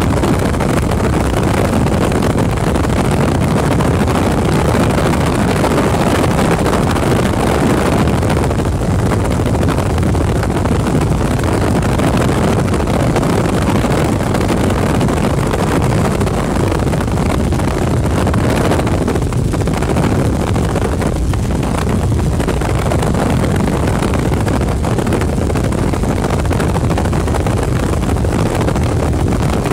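Helicopter in flight, heard from on board: a steady, loud engine and rotor noise that does not let up.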